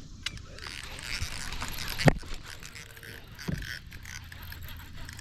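Handling noise in a fishing boat: a sharp knock about two seconds in and a softer one later, over a light hiss.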